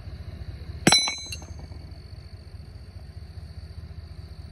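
A single sharp metal clang about a second in, ringing briefly with a few light clinks after it, from the steel hook and shackle of a digital hanging scale being handled. A steady high cricket trill runs underneath.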